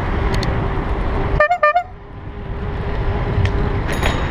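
Bicycle horn giving two quick toots about a second and a half in, over steady wind and road noise from riding.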